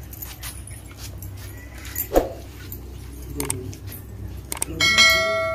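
Faint scattered clicks, a short sound about two seconds in, then near the end a bright chime that strikes suddenly and rings out, fading: the bell sound effect of a subscribe-button animation.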